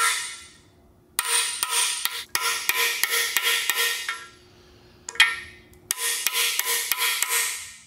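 Hammer tapping on a socket seated in a new freeze plug (core plug), driving the plug into an engine block. The taps come in several quick runs of about four or five a second, each with a short metallic ring.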